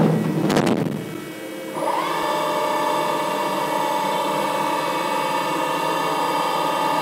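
CNC milling machine's spindle and end mill cutting into a plastic spool of brass wire: a harsh clatter fades in the first second, then about two seconds in a steady high whine starts and holds as the spool is torn and brass wire flies off it.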